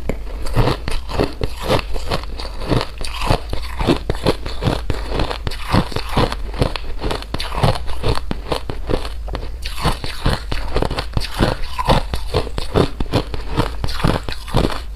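Close-miked ASMR chewing of crunchy food: a fast, continuous run of crisp crunches, several a second.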